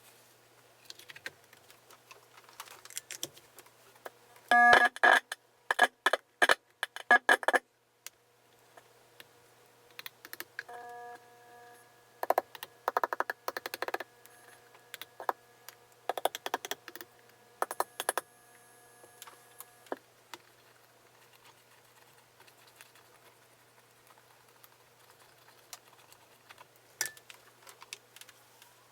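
Guitar being handled during disassembly: scattered small clicks and knocks of parts and tools, with a loud run of pitched, jangling bursts about five seconds in and a pitched ringing tone held for several seconds in the middle.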